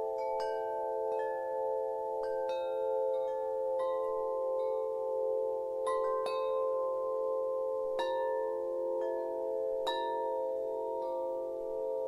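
Chimes struck at irregular intervals, roughly one strike a second, each note ringing and fading over a steady bed of lower sustained tones: a calm, shimmering chime soundscape.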